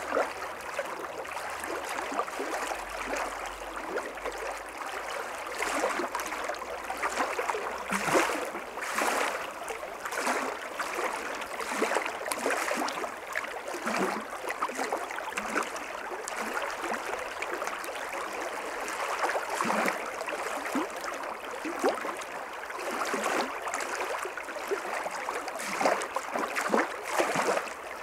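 Small shallow stream babbling over a riffle: a steady rush of water broken by many irregular little splashes.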